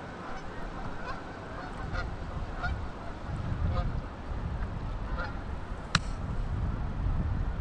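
Flock of Canada geese honking: many short calls scattered through, over a low rumble, with a single sharp knock about six seconds in.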